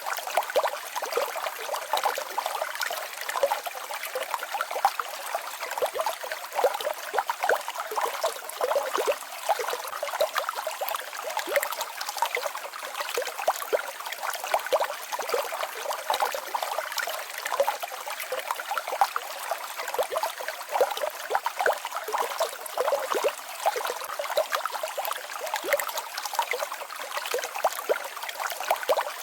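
Small mountain waterfall and stream: water babbling and trickling over rocks, a steady splashy rush with many small splashes.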